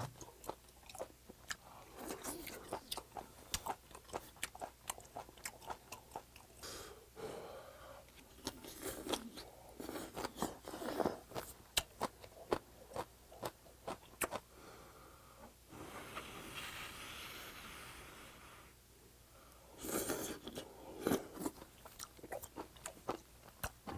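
Close-miked chewing and mouth sounds of a man eating beef intestine hot pot: many small wet clicks and smacks of chewing, with a soft steady hiss for about three seconds a little past the middle.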